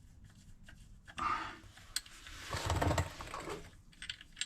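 Handling noises of someone working under a car to fit a small bolt: light clicks of metal parts, a rustle a little over a second in, and a longer rattling scrape near the middle.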